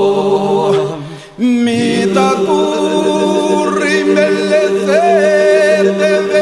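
Albanian elegy sung a cappella: voices carry a wavering melody over a steady held drone. The singing drops away briefly about a second in, then the voices come back in.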